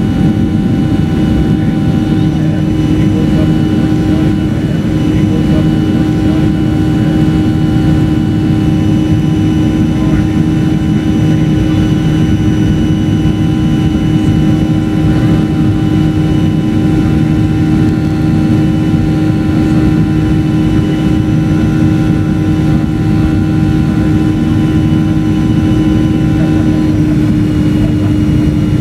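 Boeing 737-400's CFM56-3C1 turbofan engines at high power as the jet climbs just after liftoff, heard inside the cabin beside the wing: a loud, steady roar with a droning hum that dips slightly in pitch near the end.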